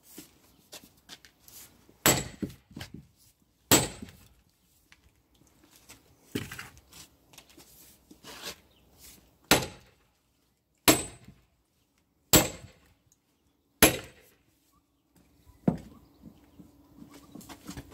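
Splitting maul lodged in a cypress round being driven with repeated hammer blows: about eight sharp metal-on-metal strikes, one every second and a half or so, each with a short ring.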